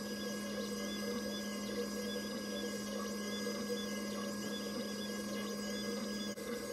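PocketNC V2 desktop 5-axis mill machining: the spindle runs with a steady hum and whine as a small end mill cuts the workpiece. There is a brief drop-out about six seconds in.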